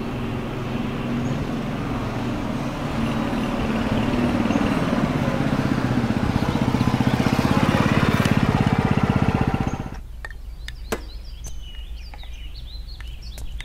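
Small step-through motorbike engine running and growing louder as the bike approaches, then switched off about ten seconds in. A few clicks and faint bird chirps follow.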